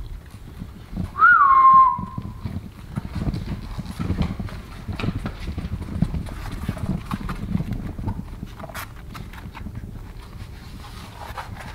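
English bulldog puppies scampering on a hard floor, their paws and nails pattering and scuffling unevenly. About a second in comes one loud, high-pitched squeal that rises, drops and holds briefly.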